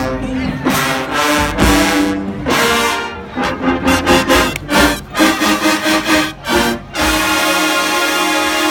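HBCU marching band with sousaphones playing in short, punchy brass hits over low drum beats, then holding one long full chord from about seven seconds in.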